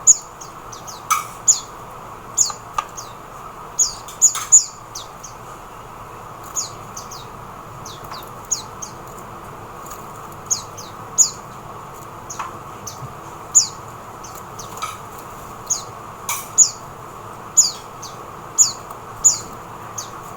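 Oriental white-eyes (mata puteh) calling: short, thin, very high chirps that drop in pitch, scattered irregularly about once a second over a steady hiss.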